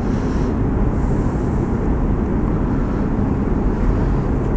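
Steady low rumble with hiss, unchanging throughout: continuous background noise.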